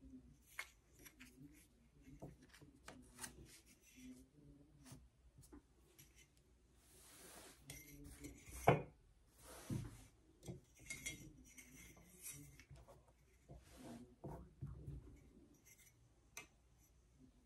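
Faint handling sounds: a metal ruler tapping and sliding on satin dress fabric, with the satin rustling as it is smoothed and moved. A sharper knock comes about halfway through.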